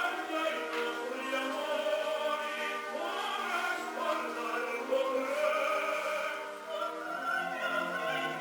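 Music: classical operatic singing over an orchestra, with long held, wavering notes.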